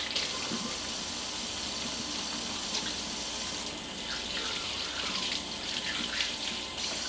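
Kitchen faucet running steadily into the sink while hands are washed under the stream.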